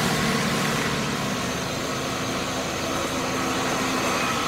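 Engine of an off-road 4x4 running steadily at low revs while the vehicle crawls along a muddy track, getting a little louder about three to four seconds in.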